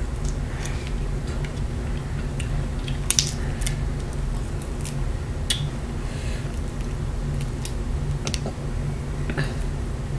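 Shrimp shells cracking and being peeled off by hand: scattered short crackles and snaps over a steady low hum.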